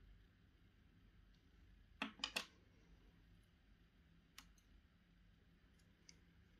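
Near silence, broken by small clicks and clinks from handling a CPU cooler's small parts, such as its black wire fan clips: a quick run of three about two seconds in, a single click a couple of seconds later, and fainter ticks near the end.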